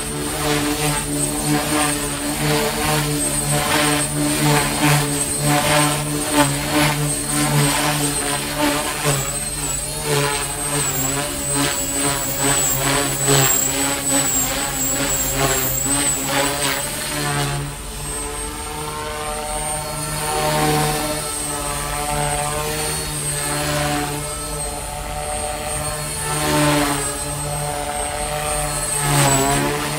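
Align T-Rex 300X electric RC helicopter in flight: the steady beat of the main rotor with a high, thin motor whine. The pitch swells and dips several times as it manoeuvres.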